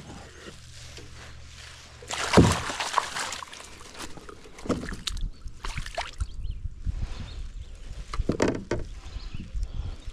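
Northern pike thrashing in a landing net at the water's surface, splashing water, loudest about two seconds in and again in a burst a little after eight seconds.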